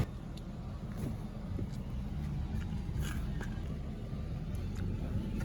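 Car engine idling, heard from inside the cabin as a steady low rumble, with a few faint clicks.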